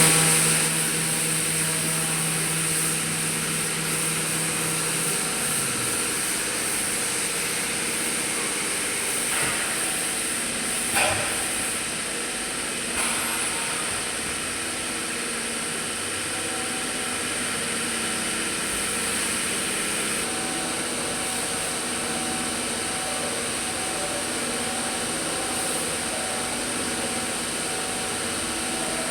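Steady hum of workshop machinery running, with several constant tones and a high hiss, and a couple of short knocks near the middle.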